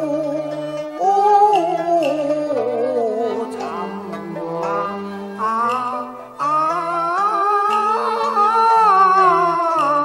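A woman singing a Cantonese opera song, a wavering, held melody line, over an accompaniment of plucked strings and a stepping bass line.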